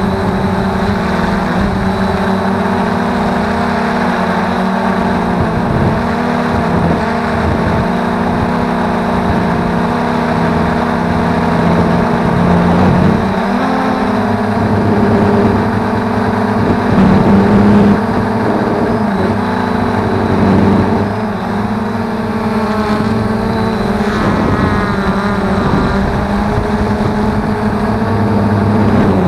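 Quanum Nova quadcopter's brushless motors and propellers whining steadily, heard close up from aboard the craft in flight. The pitch shifts up and down as the throttle changes.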